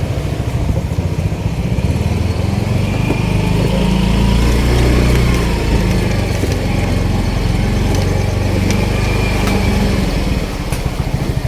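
Small motorcycle engine running steadily while riding along.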